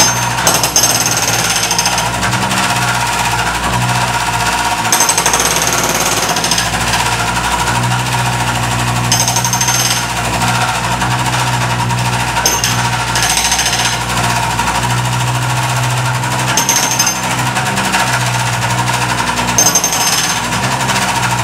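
Hydraulic breaker on a MultiOne mini loader hammering rapidly and continuously into a tiled concrete floor, over the loader's steady drone. A sharper, higher clatter comes and goes every few seconds.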